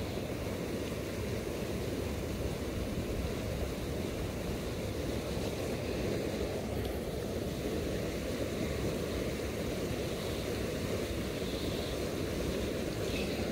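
Steady rush of a shallow, fast river running over stones, with wind rumbling on the microphone.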